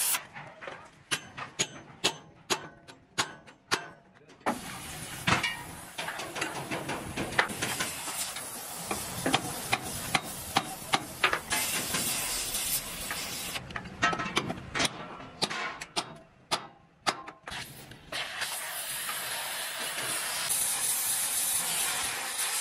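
Oxy-fuel gas torch hissing steadily on a steel truck chassis rail, broken by runs of sharp metal knocks, about three a second in the first four seconds and again in a bout about two-thirds of the way through.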